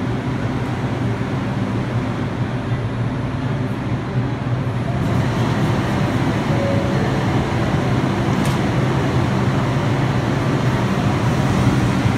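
A New York City subway train standing at the platform with its doors open gives off a steady, loud low hum from its onboard equipment. It grows slightly louder and brighter about five seconds in, with one short click a few seconds later.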